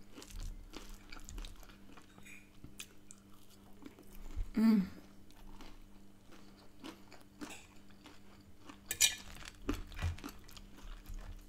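Close-miked chewing and biting of crispy fried chicken chunks and crinkle-cut fries, with many small crunches and mouth clicks. A short vocal 'mm' sound about halfway through, and a brief sharp sound about nine seconds in.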